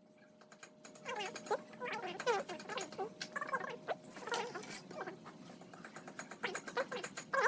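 A small domestic animal crying in a series of short calls that waver in pitch, starting about a second in.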